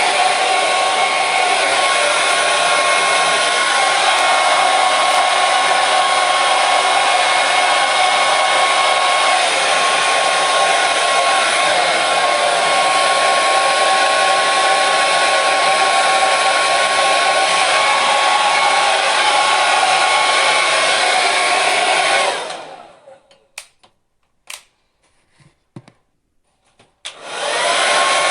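Hair dryer running steadily with a faint high whine. It is switched off about 22 seconds in and dies away to near silence with a few faint clicks, then is switched back on a few seconds later, its whine rising as it spins back up.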